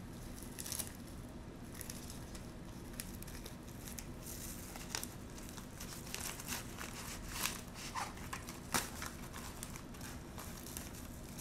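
Crinkling and rustling of packaging being handled: a pouch stuffed with crinkle paper is worked into a poly bubble mailer, with irregular sharp crackles now and then.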